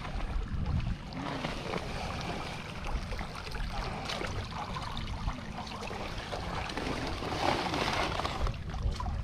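Shallow water sloshing and a woven plastic sack rustling as it is opened and dipped into the water, with a busier patch of splashing and rustling near the end.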